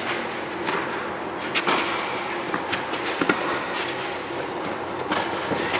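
Tennis rally: racket strikes on the ball and ball bounces on the court, a handful of sharp knocks roughly a second apart, over a steady droning background.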